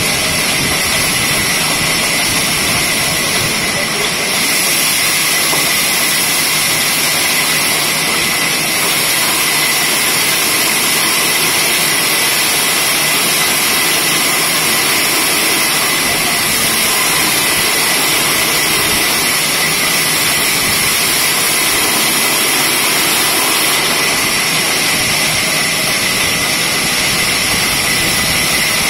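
Horizontal band sawmill running with its blade sawing through a log on the carriage: a loud, steady high-pitched whine over a hiss.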